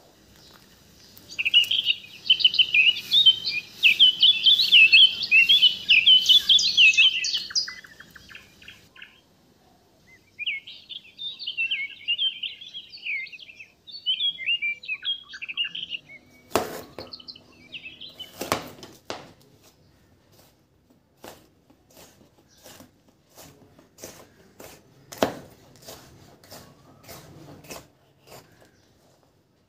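Small birds chirping and twittering for most of the first half. In the second half this gives way to a knife tapping irregularly on a plastic cutting board as green bell pepper is sliced, with a few louder strokes among lighter ones.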